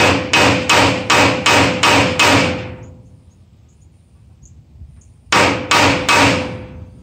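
Hammer driving a center punch into a marked hole on the steel trailer frame, to start the hole for drilling: seven quick blows about three a second, a pause, then three more near the end, each with a short metallic ring.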